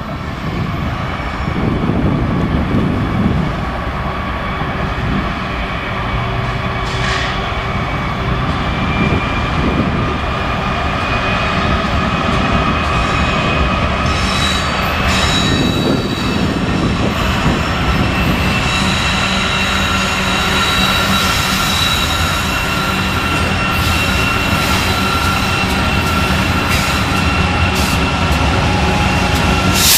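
Two BNSF diesel locomotives pulling a loaded coal train, their engines rumbling steadily as they approach and pass below, with a steady high whine that comes in over the rumble about halfway through.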